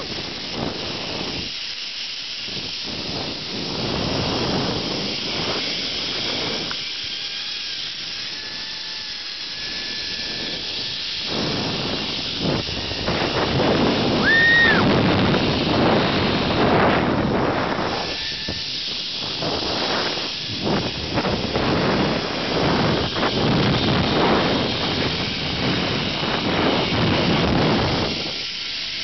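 Wind rushing and buffeting over the microphone during a fast zipline ride, swelling and easing as speed changes, with a faint thin whine in the first half and one short high whistle-like sound about halfway through.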